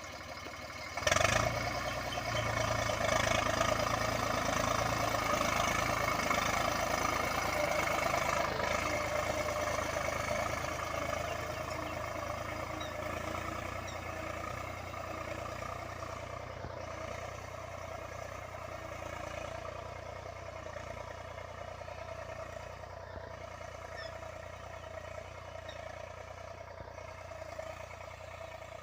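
Eicher 485 tractor's three-cylinder diesel engine running steadily while ploughing. It comes in sharply about a second in, is loudest for the next several seconds, then slowly fades.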